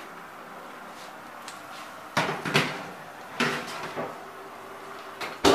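Metal baking tray going back into an oven, with a few scrapes and knocks as it goes onto the rack, then the oven door shut with one sharp, loud clack near the end.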